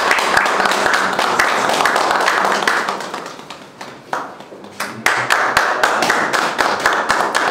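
A room full of people applauding: many hands clapping in a dense patter, thinning out about three seconds in and picking up again about a second later.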